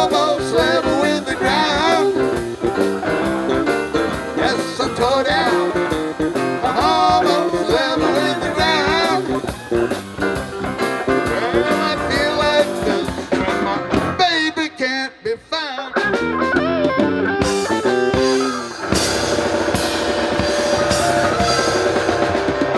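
Live blues band playing an instrumental passage: electric guitar lead lines over electric bass, drum kit and keyboard. There is a brief drop about 14 seconds in. It ends on a long held chord with a cymbal wash in the last few seconds.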